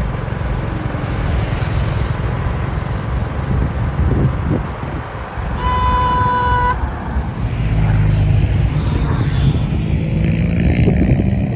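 A vehicle horn honks once for about a second, midway through, over a steady heavy rumble. A vehicle engine drone comes in during the second half.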